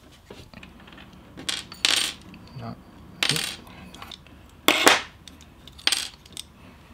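Small metal screws and the flash head's plastic ring and glass disc clicking and clinking while being handled and taken apart on a wooden tabletop: about five sharp clicks at irregular intervals.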